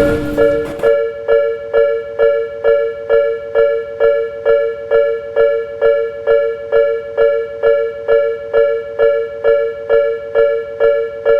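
Japanese railway level-crossing alarm ringing its repeated electronic two-tone ding, about two and a half strikes a second, steady throughout. In the first second a rumbling noise with a steady low hum runs under it and cuts off suddenly.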